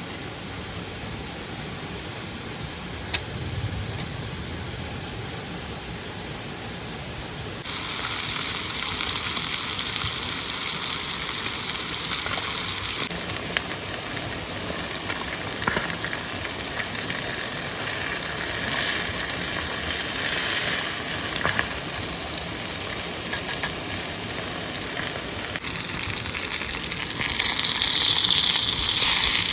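Steady rush of a nearby stream with a single click, then about eight seconds in food starts sizzling loudly in a pan over the campfire and keeps frying, swelling louder near the end.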